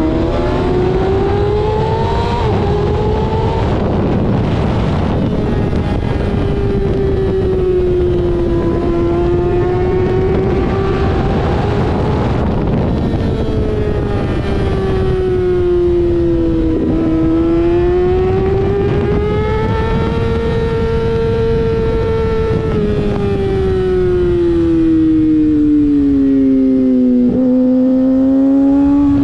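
Kawasaki ZX-6R 636 inline-four engine running hard on a track lap, its pitch climbing and falling several times as the rider accelerates and slows for corners. There are sharp gear changes about two and three seconds in and a downshift blip near the end. A heavy wind rush comes from the helmet-mounted microphone.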